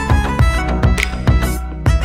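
Background music: a violin-led electronic track over a steady beat, with a low kick drum about twice a second.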